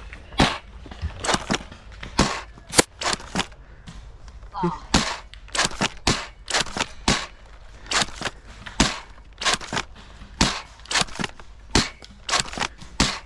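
Nerf foam-dart blasters firing during a game: many sharp pops at uneven intervals throughout, some in quick runs of two or three.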